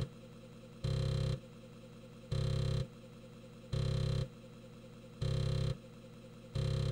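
Emulated BBC Micro floppy disk drive running steadily with a low hum. About every second and a half it gives a loud, half-second buzz of head movement as the compiler's blockifier stage keeps reading the disk.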